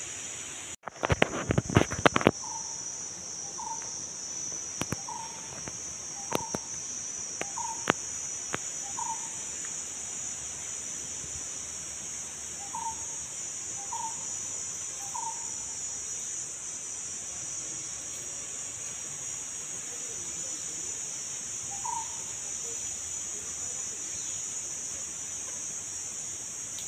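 Steady high-pitched drone of insects, with a bird's short call repeated about once a second in two runs. A quick cluster of loud sharp knocks a second or two in is the loudest thing.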